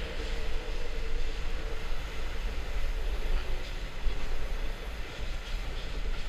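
Skateboard wheels rolling steadily over a concrete parking-garage floor, a continuous noise heaviest in the low end.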